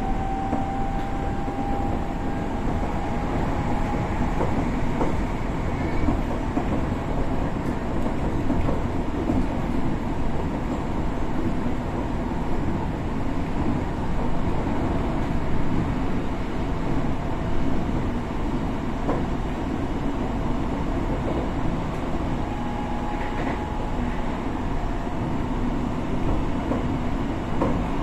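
Interior running noise of a Tokyo Metro 6000 series electric train at speed: a steady rumble of wheels on rail. In the first few seconds a faint whine from its Hitachi two-level VVVF traction drive rises slightly in pitch.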